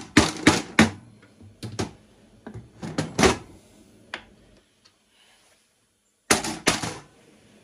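Hammer striking the end of a screwdriver used as a punch against a sewing machine's metal housing: short runs of sharp knocks, then a pause of about two seconds before a last few blows near the end.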